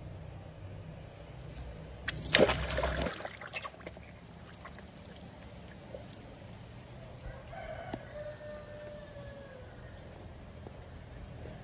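A loud rush of noise lasting about a second and a half, two seconds in, then a rooster crows once about seven seconds in, one long call that falls at the end.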